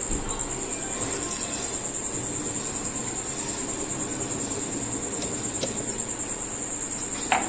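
Milk poured from a mug into a plastic blender jar over a steady high-pitched tone, with a short sharp knock near the end.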